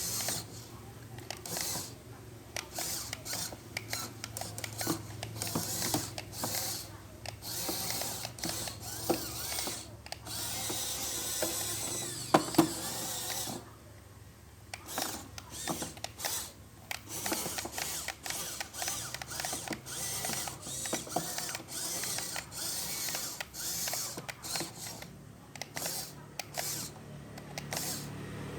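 Small mechanism clicking and whirring in many short, irregular bursts over a steady low hum, with a sharper click about halfway through.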